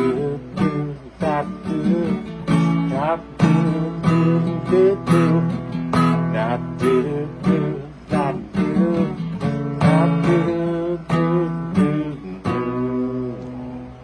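Acoustic guitar strummed in a steady rhythm, with the last chord left to ring and fade out near the end.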